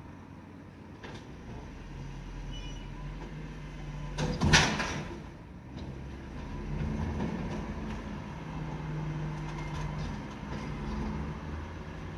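Rear-loader garbage truck's engine and hydraulic bin lifter running as a wheelie bin is raised and tipped into the hopper, with one loud clatter about four and a half seconds in.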